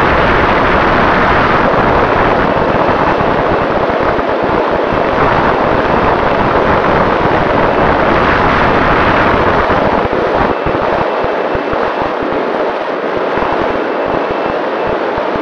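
Airflow rushing over the onboard camera of an electric AR900 RC plane in flight, with the motor and propeller at half throttle making a faint steady whine under it. The low buffeting thins out after about ten seconds.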